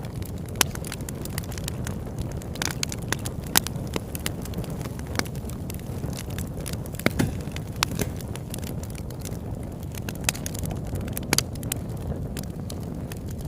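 Campfire burning: a steady low rush of flames with irregular sharp pops and snaps of wood.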